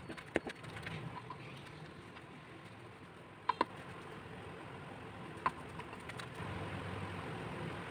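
Wooden spoon stirring and mixing shredded meat in sauce in a glass bowl, with a few sharp clicks as the spoon knocks the glass, two close together about three and a half seconds in. A steady low hum runs underneath.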